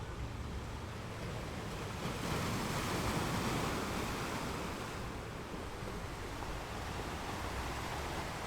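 Ocean waves on a beach: a steady wash of surf that swells as a wave breaks about two seconds in, then slowly eases off, over a low rumble.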